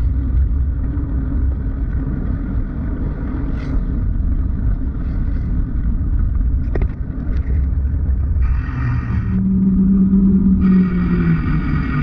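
Steady low rumble of wind and road noise, muffled through a GoPro's waterproof case on a moving bicycle. In the second half, the engine drone of passing traffic comes in twice.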